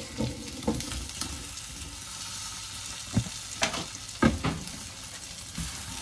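Chicken shami kababs sizzling in shallow oil on a non-stick tawa as they are turned over with a spatula. A few sharp knocks and scrapes of the spatula against the pan come through the steady sizzle, the loudest about four seconds in.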